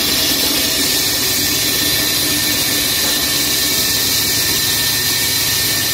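Petrol-engined walk-behind concrete floor saw running steadily and loud: an even hiss with a thin, steady high whine over the engine.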